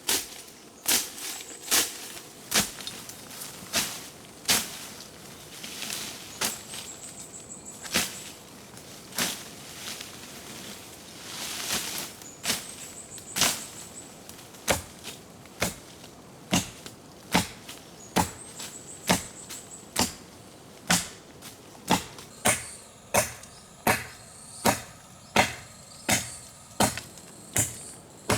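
Chopping: a long series of sharp strikes, about one a second at first, settling into a quicker, even rhythm in the second half. Short, high insect trills come in between the strikes.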